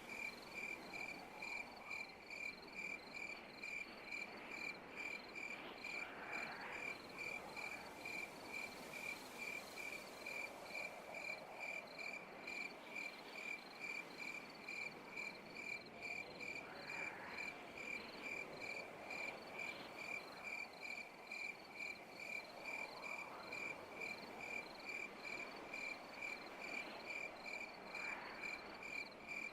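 Night insects calling: one insect repeats a high, even chirp several times a second over a fainter background chorus. A softer rising call comes in every five or six seconds.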